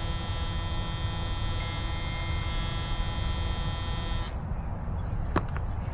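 A furnace motor running with a steady electric hum and whine. It cuts off suddenly about four seconds in, leaving a low rumble and a couple of sharp clicks.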